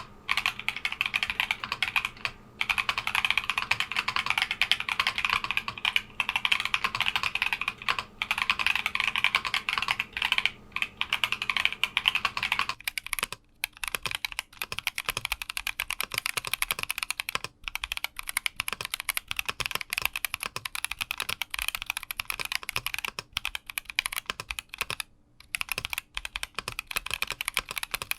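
Fast, continuous typing on a Keychron Q60 mechanical keyboard, a dense stream of key clicks. About 13 seconds in the sound changes, the clicks becoming sparser, as if switching to another take or switch set.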